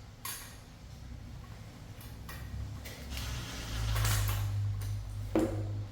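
Ceiling fan parts being handled while a screw is fitted into the fan's housing: light scraping and knocking, busiest about four seconds in, with a sharp short sound near the end.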